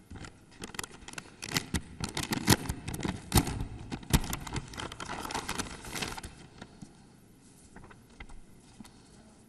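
Papers and small objects handled close to a microphone: a dense string of rustles, clicks and knocks that dies down to a low background after about six seconds.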